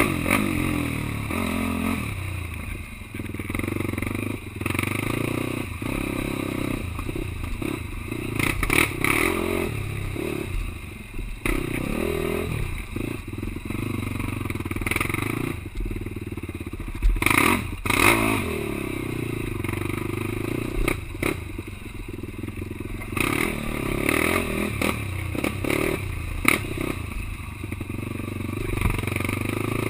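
Quad (ATV) engine running and revving up and down, with scattered knocks and clatter, the loudest around 17 seconds in.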